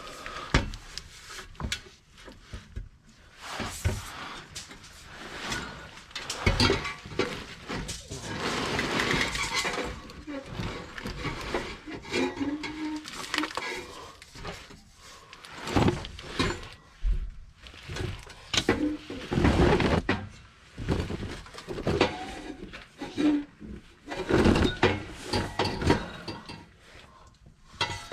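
Irregular clinks, knocks and scraping of hands working on an exhaust system, fitting a rubber exhaust hanger onto the pipe's hanger rod, with a few short squeaks.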